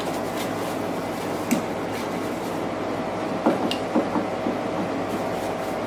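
Cloth rag rubbing and wiping over the metal front panel of an AKAI GX-215D reel-to-reel tape deck, with a few light knocks and clicks about a second and a half in and again around the middle, over a steady background hum.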